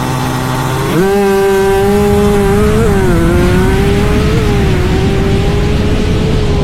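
Racing engine revved and held at high revs: a steady high-pitched engine note that jumps up about a second in, then holds with slight wavers.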